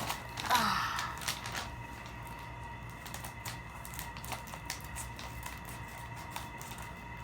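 Scissors snipping and paper crinkling as a homemade paper blind bag is cut open: a scatter of small, light clicks and rustles, busiest about half a second to a second and a half in.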